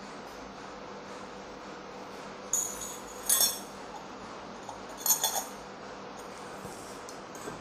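Small stainless-steel kitchen pieces clinking: the murukku press's star disc and a small steel oil cup knocked together while the disc is oiled. A few sharp clinks with a short ring, one about two and a half seconds in, one a second later, and a quick cluster about five seconds in.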